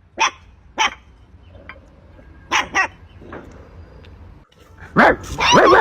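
A dog barking in short, sharp single barks, a few of them close together in pairs, with a louder sound of wavering tones coming in near the end.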